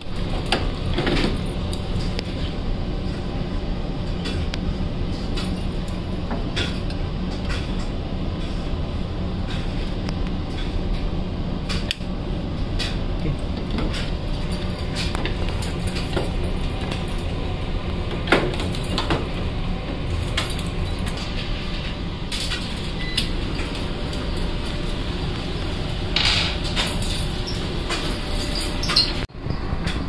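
Scattered clicks and rattles of a washing machine's sheet-metal and plastic control-board tray being handled and its wire connectors worked, over a steady low machinery hum.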